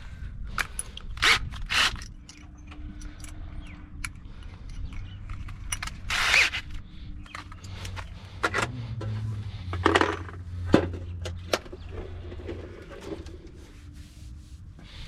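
Irregular metallic clinks, knocks and scrapes of a socket set and metal parts being handled while a motor is unbolted from a washing machine, with a longer scrape about six seconds in.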